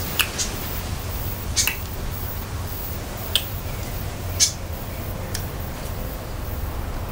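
Scattered wet mouth clicks and lip smacks from people chewing jelly beans, about six sharp ticks spread over a few seconds, over a steady low rumble.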